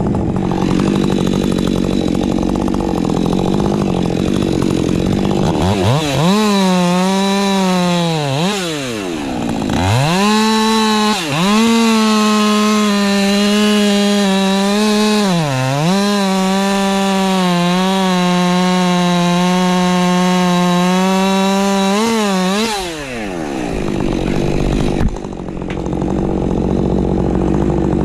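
Ported Husqvarna 550 XP Mk II chainsaw revved hard to full throttle, dropping back and rising again a few times, then held at a steady high scream for several seconds with brief dips before falling back. A lower, steady engine sound runs before and after the high revving.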